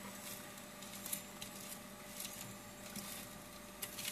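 Spatula scraping and turning half-baked potato wedges on a baking tray: soft, irregular scrapes and squishes over a steady faint hum.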